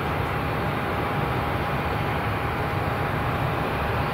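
Airbus A319-132's IAE V2500 turbofan engines running at taxi idle as the airliner rolls along the taxiway: a steady jet rumble with a thin, even whine over it.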